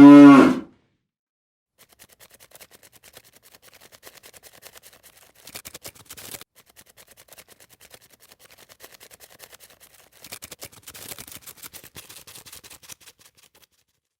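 The end of a cow's moo, dropping in pitch and cutting off about half a second in, followed by faint, irregular crackling and clicking.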